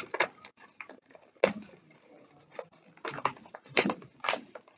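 A sheet of paper rustling and crinkling as it is folded and creased by hand, in short irregular crackles.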